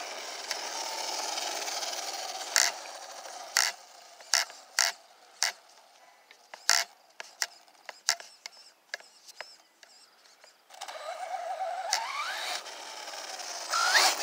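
Arrma Typhon 6S RC buggy's brushless motor whining under throttle, with tyre noise. A quieter stretch follows with a run of sharp clicks and knocks. Near the end the motor whine rises in pitch twice as the buggy accelerates.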